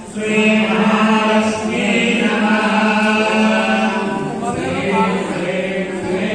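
A group of voices chanting a Hindu devotional hymn in unison on a steady, held pitch, picking up again after a brief breath at the start.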